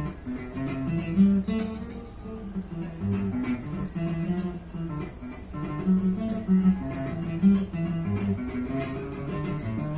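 Acoustic guitar playing a run of plucked and strummed notes, one note after another.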